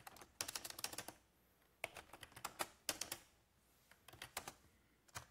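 Typing on a computer keyboard: quick keystrokes in three short bursts with pauses between.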